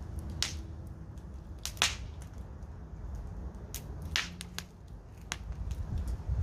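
Wood fire crackling: irregular sharp pops and snaps from the burning wood, the loudest about two seconds in, over a low steady rumble.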